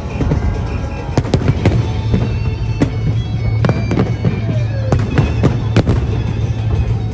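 Aerial fireworks shells bursting in a rapid, irregular run of sharp bangs over a steady low rumble.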